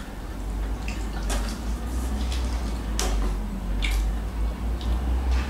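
Close-up eating sounds: wet chewing and squishing, with three or four sharp clicks of utensils, over a low hum.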